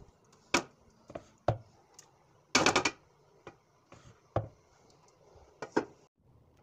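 A wooden spoon knocking and scraping against an aluminium cooking pot: a series of separate sharp knocks, with a quick rattling cluster of knocks about two and a half seconds in.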